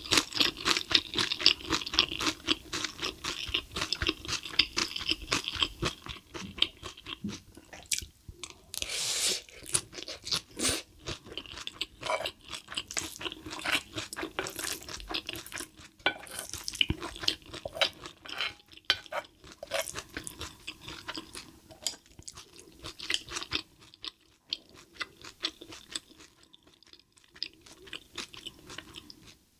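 Close-up wet chewing and crunching of spicy stir-fried cuttlefish wrapped in steamed cabbage, dense at first and quieter near the end. A spoon now and then scrapes sauce from the cast-iron pan.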